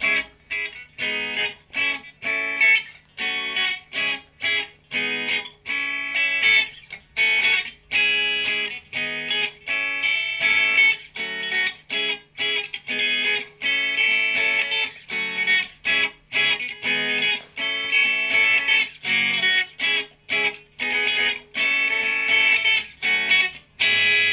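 Stratocaster-style electric guitar played through a small combo amp: a funky riff of short, choppy chord stabs with brief breaks between them. Near the end, a chord is left ringing.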